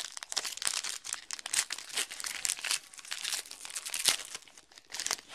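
Foil wrapper of a football trading-card pack being torn open and crinkled by hand: a dense run of crackling that thins out near the end.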